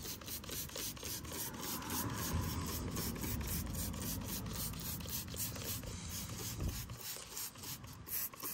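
Trigger spray bottle of wheel and tire cleaner being pumped rapidly: a quick, even string of short spray hisses, several a second.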